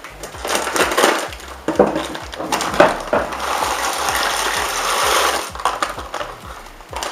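Plastic bag of frozen corn crinkling as it is snipped open with scissors, then frozen corn kernels pouring out of the bag into the broth in a slow cooker, a steady rush for about two seconds past the middle.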